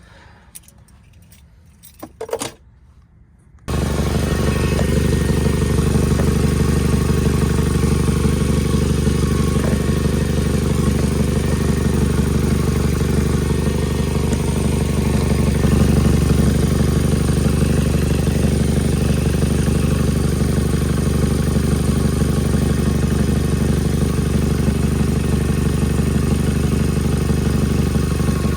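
A few light clicks and ticks, then about four seconds in the 2017 Nissan Altima's engine is heard running steadily and loudly, with the noise of an exhaust leak from a cracked exhaust manifold.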